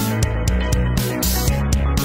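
Background music with a fast, steady drum beat over a bass line.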